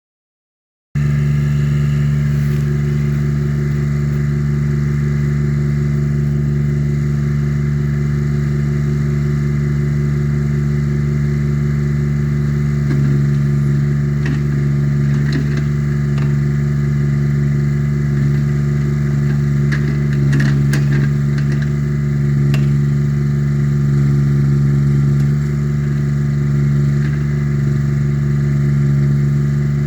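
Small engine of a mini Allmand 225 backhoe running steadily at a constant speed. It starts about a second in, and a few light clanks come in the middle.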